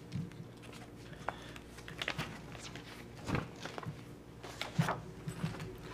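Paper pages being handled and turned near a table microphone: scattered short rustles and light taps over a low room hum.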